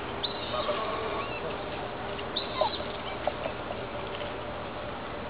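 Faint outdoor background with a few short, high chirps and squeaky animal calls, one about a third of a second in and another about two and a half seconds in.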